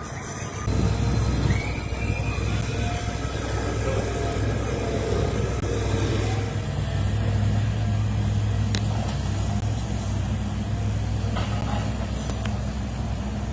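Low, steady rumble of a large vehicle's engine, coming in about a second in.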